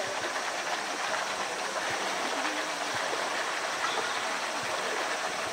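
Steady rush of running water in a polar bear's pool enclosure, with faint voices of onlookers underneath.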